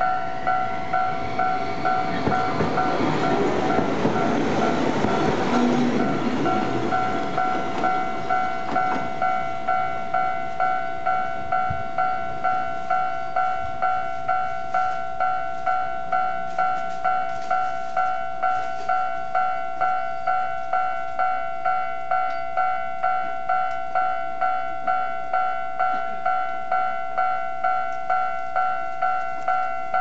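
Electronic level-crossing warning bell ringing through its horn loudspeaker, an even repeated ding of two steady tones, somewhat more than once a second. Over it, in the first several seconds, a Tokyu Setagaya Line train runs past the crossing, its wheels and motors rising to a peak and fading.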